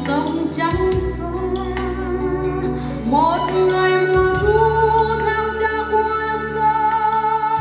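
Music: a slow melody of long, slightly wavering held notes over sustained bass notes that change every few seconds.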